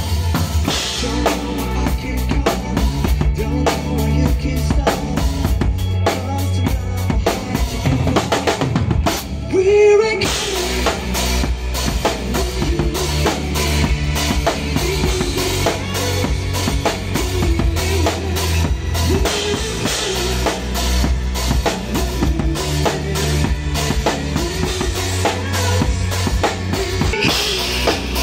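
Live rock band playing, with the drum kit loud in the mix: a steady kick drum, snare hits and cymbals over the rest of the band.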